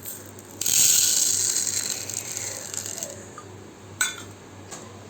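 Dry spices poured from one container into another: a rattling hiss that swells about half a second in and trails off over a couple of seconds, then a single sharp click near the end.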